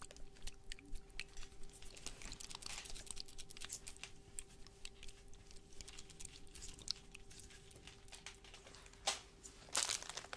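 Soft crinkling and small tapping clicks of a plastic-wrapped candy tube handled close to the microphone, with a louder rustle near the end. A faint steady hum sits underneath.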